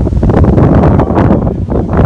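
Strong wind buffeting the microphone: a loud, irregular low rumble.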